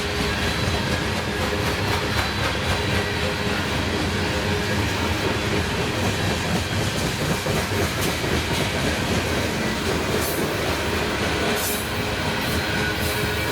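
Freight train rolling past, its wheels clicking over the rail joints, with a steady rumble throughout.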